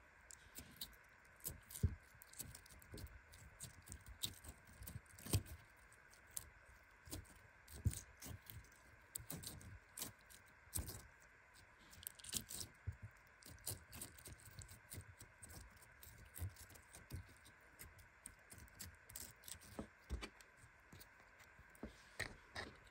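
Hands squeezing and kneading a lump of glossy slime, making irregular soft clicks, pops and crackles, a few of them louder.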